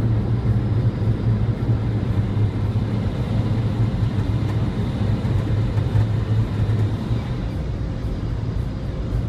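Motor vehicle running with a steady low engine drone and road noise, easing off a little near the end.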